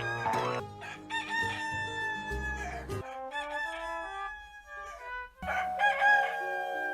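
Rooster crowing twice, each crow a long drawn-out call that sags in pitch at the end, over background music. The first crow comes about a second in, the second a little past halfway.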